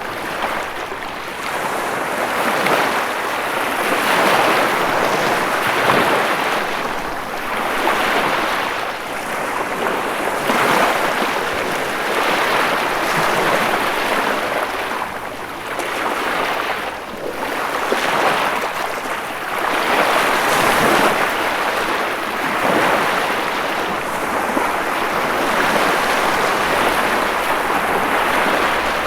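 Ocean waves breaking and washing on the shore, a steady rush that swells and ebbs every few seconds.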